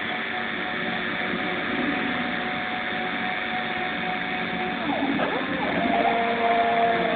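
CNC machine running: a steady motor whine of several tones over a noisy hiss, the tones shifting in pitch and growing slightly louder about six seconds in. Faint voices are heard underneath.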